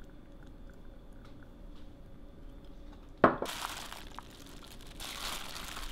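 Spicy whelk salad (golbaengi muchim) being mixed in a stainless steel bowl: wet rustling and squishing of the sauced vegetables. There is a single sharp knock against the bowl about three seconds in. The mixing is faint at first and grows louder after the knock.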